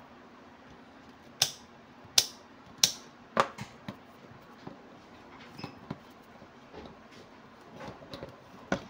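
Rotary function selector of a UNI-T UT15B Max multimeter clicking from one detent to the next: four sharp clicks about two-thirds of a second apart. Softer clicks and knocks follow as the test-lead plugs are handled at the meter's input jacks, with a sharper click near the end.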